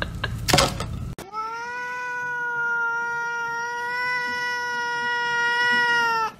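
A black-and-white cat gives one long, unbroken meow lasting about five seconds, beginning about a second in and barely changing pitch. Before it come a few short clicks.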